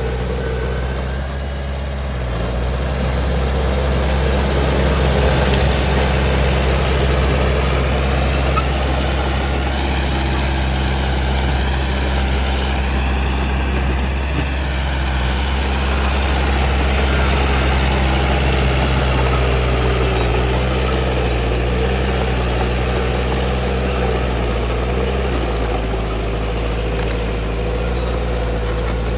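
Heavy diesel engine running steadily at a low, even speed, its pitch wavering only slightly.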